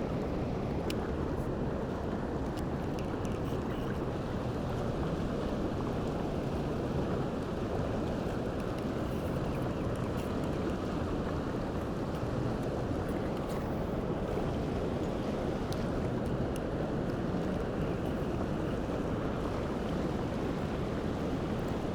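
Steady rushing of flowing river water, even and unbroken, with a few faint ticks over it.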